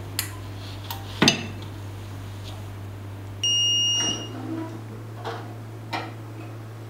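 Sublimation heat press giving one electronic beep, a steady high tone lasting about half a second. A loud knock and some lighter clicks come from the press being handled, over a steady low hum.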